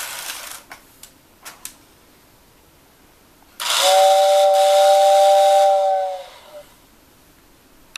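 Lionel 6466WX whistle tender's motor-driven air whistle blowing once for about two and a half seconds: an airy two-tone hoot that cuts off sharply. Earlier, a hiss fades away and a few light clicks sound.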